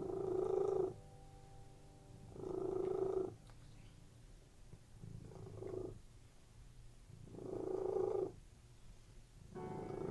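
Domestic cat purring in rhythmic swells, one about every two and a half seconds, over soft background music.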